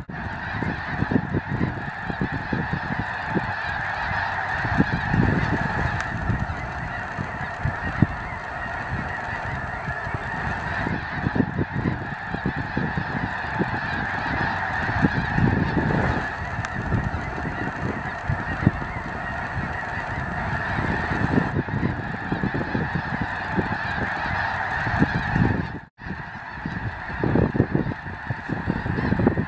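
Dense, unbroken chorus of honking calls from a huge flock of snow geese overhead, with a low rumble of wind on the microphone underneath. It cuts out abruptly for a moment about 26 seconds in, then resumes.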